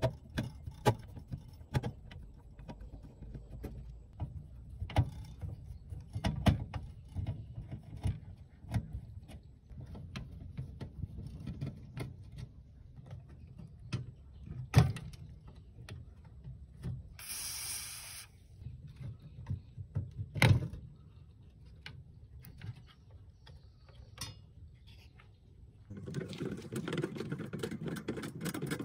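Screwdriver and fingers working on an old stereo's circuit boards and sheet-metal chassis: scattered clicks, small knocks and scrapes. There is a sharper knock about fifteen seconds in and another around twenty, a short harsh scrape just before that, and denser rattling near the end.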